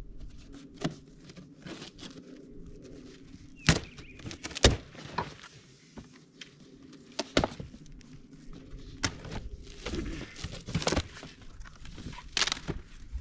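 A cardboard shipping box being opened and unpacked by hand: rustling and scraping cardboard broken by several sharp knocks and thumps.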